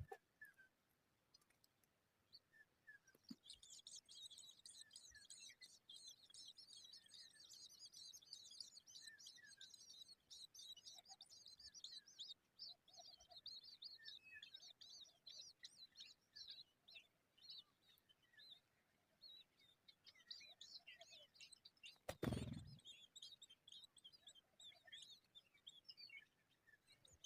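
Baby birds chirping rapidly and continuously in high, thin calls, starting a few seconds in: nestlings begging to be fed. A single loud thump breaks in about two-thirds of the way through.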